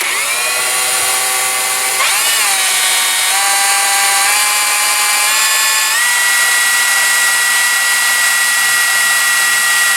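Electric drill spinning a GM alternator through a cut-off 5/16 Allen key: a loud motor whine that starts suddenly, steps up in speed several times over the first six seconds, then holds steady. The alternator is turning fast enough to charge.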